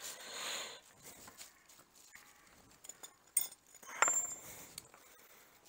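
Metal hand tools being handled: a few sharp clinks and clicks, the loudest about three and a half and four seconds in, the last with a brief high ring.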